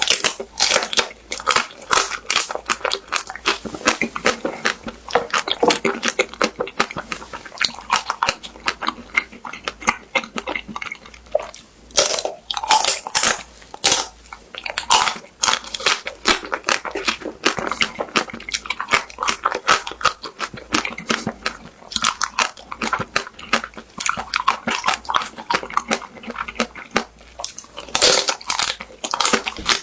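Close-miked biting and chewing of a crispy-shell ice cream bar: the crisp coating cracks and crunches in a dense run of quick snaps, with several louder bites spread through.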